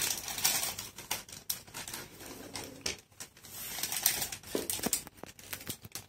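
Thin clear plastic bag of styrofoam balls crinkling and crackling as it is handled in both hands: a quick, irregular run of sharp crackles.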